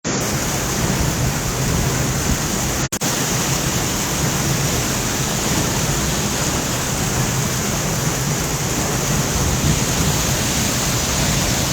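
Waterfall rushing: a loud, steady, even roar of falling water. It cuts out for an instant about three seconds in.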